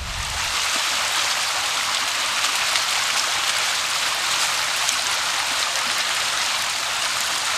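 Dense, steady splashing and spattering of water from a mass of carp thrashing at the surface in the shallows, crowding in to spawn.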